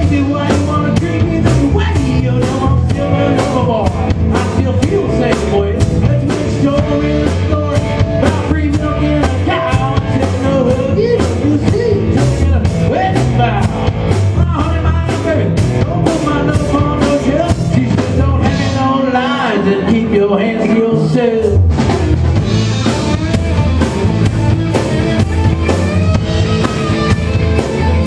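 Live rock band playing an upbeat rock-and-roll number: drum kit keeping a steady beat under electric guitar and keyboard. About two-thirds of the way through, the bottom end drops out for a couple of seconds before the full band crashes back in.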